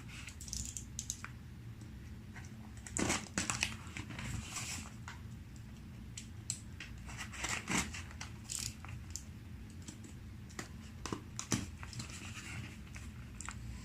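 Packaging crinkling and tearing as a parcel is unwrapped by hand, in irregular rustles and small clicks.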